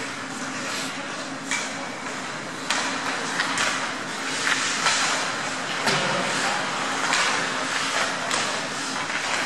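Ice hockey play: a steady scrape of skate blades on the ice, broken by a scattering of sharp clacks of sticks and puck.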